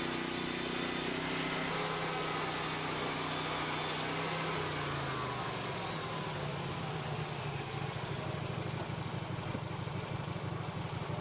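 Lumbermate portable band sawmill running on its engine. The blade cuts wood with a hissing saw noise for about the first four seconds, then the engine settles to a lower steady running note with a falling whine.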